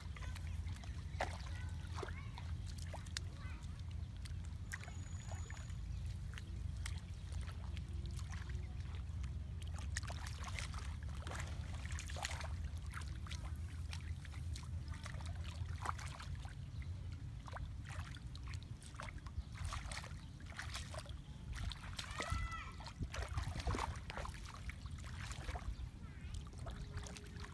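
Hands splashing and sloshing in shallow muddy water while feeling for fish, many small splashes and clicks over a steady low rumble.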